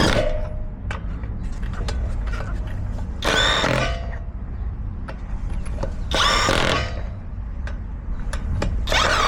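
Power tool spinning lug nuts onto a truck wheel, in short bursts of under a second about every three seconds, with a steady low rumble underneath.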